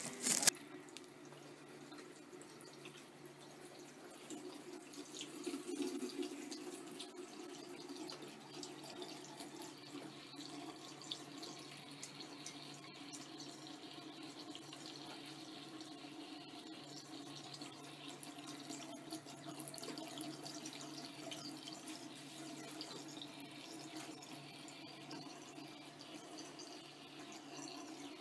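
A thin stream of tap water running steadily from a bathroom faucet into a sink, faint and even.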